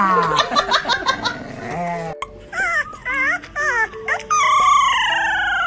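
A dog whining and howling in a string of wavering, pitch-bending calls, ending in one long falling howl, over background music.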